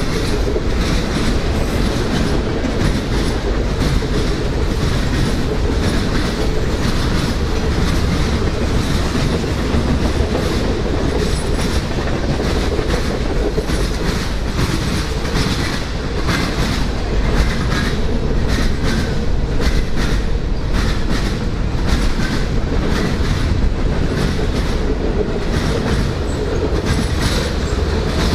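Freight cars of a passing train rolling by: a steady rumble of steel wheels on the rails with continual clacking.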